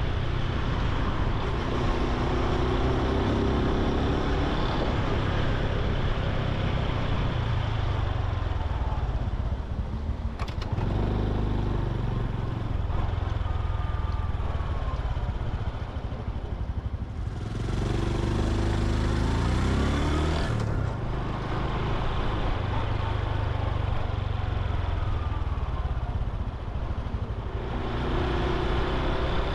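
Honda Super Cub C125's single-cylinder four-stroke engine and exhaust while riding, the engine note rising several times as the bike accelerates through the gears, with wind rushing past in between.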